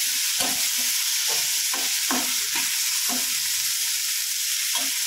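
Onions, tomatoes and green chillies sizzling in oil in a stainless steel kadhai, with a steady hiss, while a steel spatula stirs them, scraping and knocking against the pan several times.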